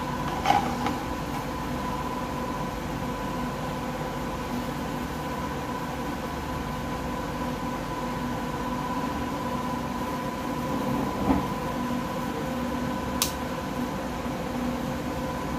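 A steady hum with a few fixed tones in it, like a fan or electrical hum, with a few small clicks as multimeter probes touch the pins of an IC on a circuit board.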